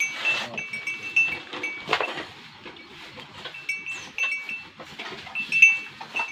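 Small livestock bells clinking in short, repeated rings as the animals move, with a louder brief burst of noise about two seconds in.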